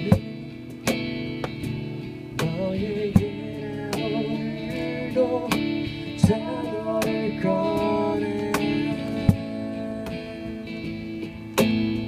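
Live acoustic band music: strummed acoustic guitar and a woman singing, with sharp cajon hits marking the beat.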